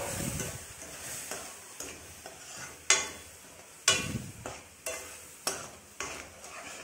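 A metal spoon stirring halwa simmering in milk in a metal kadhai, over a steady low sizzle. In the second half the spoon knocks sharply against the pan about once a second.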